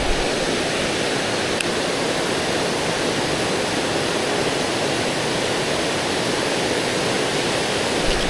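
Steady rush of water spilling over a concrete weir into the pool below.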